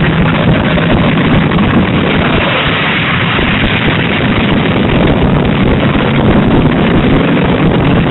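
Engines of many demolition derby cars running together, a loud, steady din with no break.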